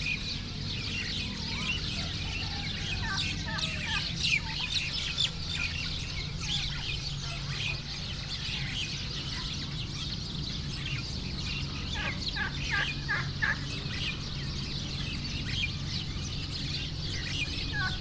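Domestic turkeys calling: scattered short clucks and yelps, with a quick run of repeated calls about twelve seconds in, over a steady low hum.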